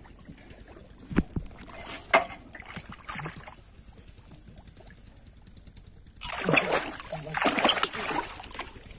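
Two sharp knocks, then loud splashing and sloshing of shallow pond water for about two and a half seconds near the end, as a catfish caught on a plastic-bottle hook trap thrashes at the surface.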